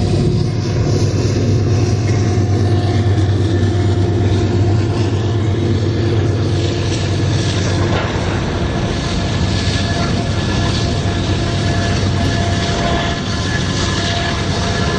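A diesel-electric locomotive engine runs with a steady low drone while a long double-stack container train rolls past on the next track, its wheels clacking over the rail joints; the wheel clatter grows more prominent in the second half as the drone eases.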